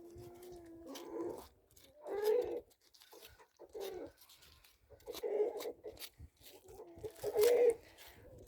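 A domestic animal crying out repeatedly, about six separate pitched calls, the loudest near the end, apparently begging for offal.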